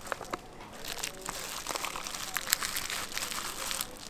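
Kimbap being rolled by hand: thin plastic food gloves crinkling and a bamboo rolling mat rustling and clicking. A few separate clicks come first, then a dense crackly rustle from about a second in until just before the end.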